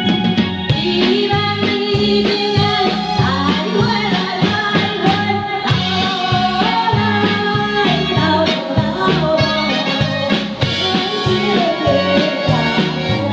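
A woman singing a Taiwanese Hokkien song into a microphone over amplified backing music with a steady drum beat.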